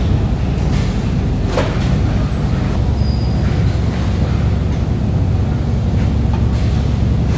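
Steady low mechanical rumble of a bacon processing line's conveyors and machinery running, with a short hiss about a second and a half in.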